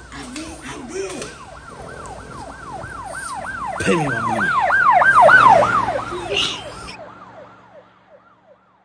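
Emergency-vehicle siren in a fast yelp: falling-pitch whoops about three a second, growing louder to a peak about five seconds in and then fading away.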